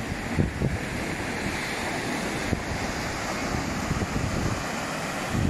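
Sea waves washing up against the shore in a steady wash, with wind buffeting the microphone in a few low thumps.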